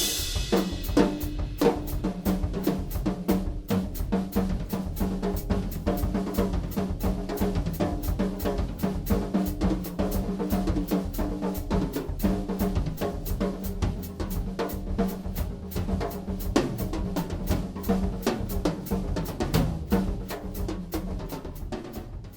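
Yamaha Recording Custom acoustic drum kit played in a fast, continuous groove of snare, bass drum and toms, with a cymbal crash ringing out right at the start. The playing eases off just before the end.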